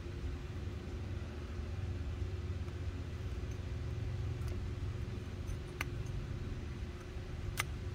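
Steady low hum, with two sharp metallic clicks, one about six seconds in and one near the end, as snap-ring pliers work at the circlip in the bore of a 1985 Yamaha VMax brake master cylinder.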